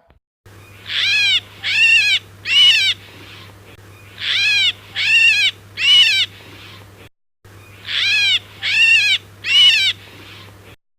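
Myna calling: three short, pitched notes in quick succession, each rising then falling, and the same three-note phrase heard three times over a low steady hum.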